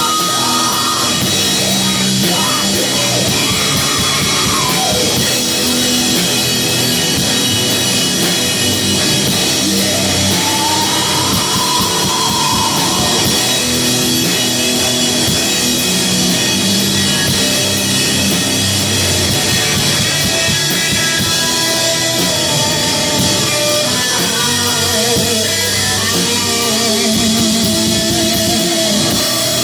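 Live doom metal band playing loudly: distorted guitars and drum kit.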